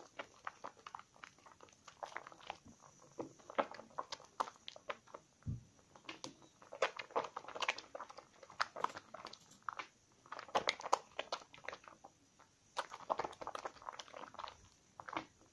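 Wet squelching and crackling of thick lather as hands squeeze and rub a slightly soaked bar of 72% laundry soap with a mesh flower puff. The sounds come in irregular runs of short squishes and pops, denser in some stretches.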